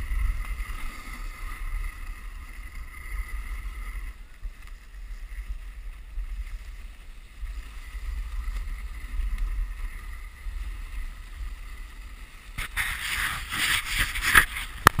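Dog sled running over a packed snow trail: the runners hiss over the snow while wind buffets the microphone. A louder scraping rush comes in near the end.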